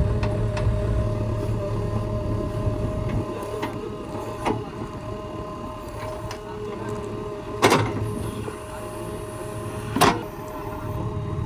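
Heavy machinery engine running steadily with a low rumble and a constant whine, broken by sharp metal knocks, the two loudest about eight and ten seconds in.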